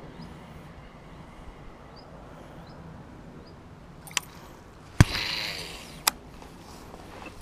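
A cast with a fishing rod and reel: a click, then a sharp knock about five seconds in, followed by about a second of line hissing off the spool as it slows and fades, ended by a click as the reel is engaged.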